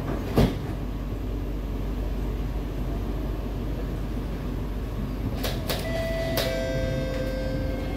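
Steady hum inside a Kawasaki-Sifang C151B metro carriage standing at a station with its doors shut. A sharp knock comes about half a second in. Near the end come a few clicks, then steady electric whines as the train's traction equipment starts to pull away.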